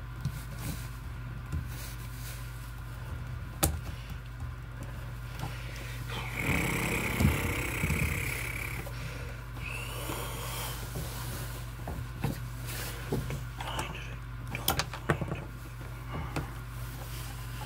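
Light clicks, taps and rustles of hands and pliers working stranded copper wires in a metal junction box, over a steady low hum. A louder stretch of rubbing noise comes in the middle.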